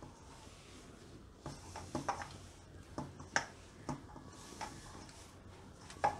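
Hands kneading stiff maida dough in a stainless steel bowl: faint, irregular squishing and pressing, with light knocks of the bowl now and then.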